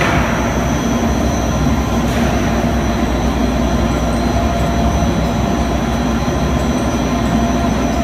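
PVC roof tile extrusion line running: a steady machine drone with a constant hum and a few held tones.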